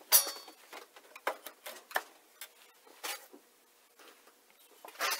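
Irregular light knocks and scrapes of wooden pieces being handled and fitted on a workbench, the loudest a sharp knock just after the start.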